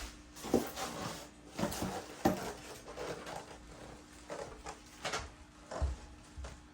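Scattered clicks, knocks and rustles of plastic parts being handled while a new Hoover SmartWash carpet cleaner is unboxed and assembled.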